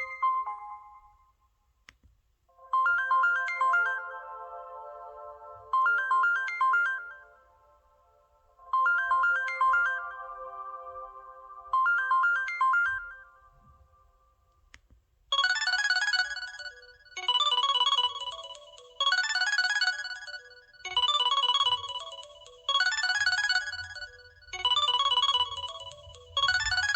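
LG-SH840 mobile phone ringtones: a short chiming melody repeated four times with pauses between. About halfway through it gives way to a different, brighter ringtone phrase that repeats about every two seconds.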